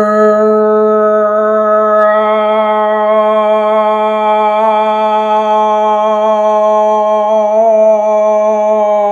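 A woman toning: one long sung vowel held steady on a single low note, with a slight waver and a brighter vowel colour from about two seconds in.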